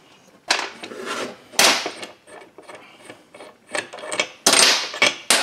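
Metal tools and chainsaw crankcase parts handled on a workbench: a handful of short scrapes and clunks, several close together near the end.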